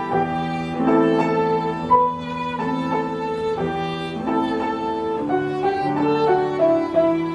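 Live acoustic music: a violin playing a melody of held notes over sustained lower notes.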